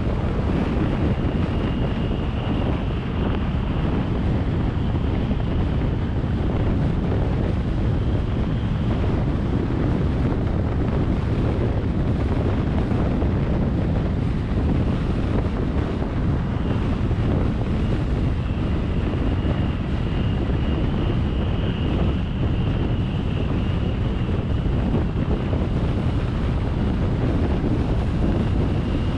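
Steady wind noise buffeting the microphone over a continuous low rumble. A faint high whine comes and goes above it.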